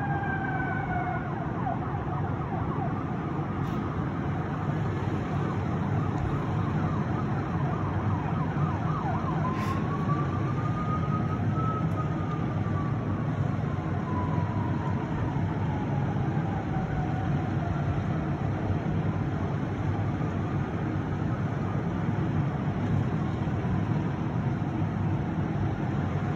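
Fire truck siren wailing: one slow rise in pitch about ten seconds in, then a long slow fall, over a steady low rumble of engines.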